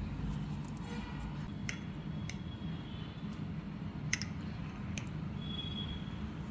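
A few sharp light clicks, utensils or spice containers tapping on a mixing bowl while spices go in, over a steady low hum. A faint high thin tone comes in near the end.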